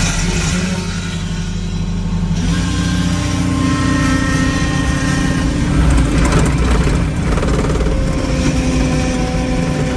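Diesel engine of a John Deere 323E compact track loader running steadily. About two and a half seconds in, its tone shifts as the engine note changes.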